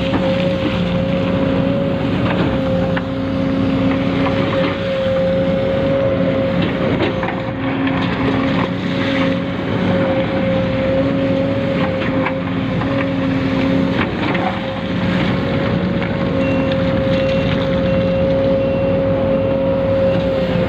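Small electric motors and gearboxes of radio-controlled construction models whining steadily, with lower motor tones cutting in and out every second or two as different functions are worked.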